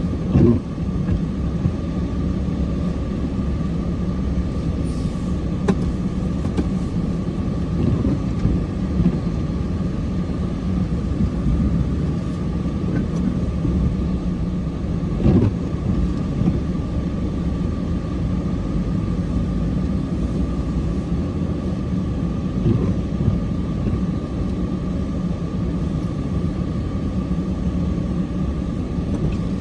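An engine runs steadily with a low rumble and a constant hum, and short knocks come through about half a second in and again about halfway through.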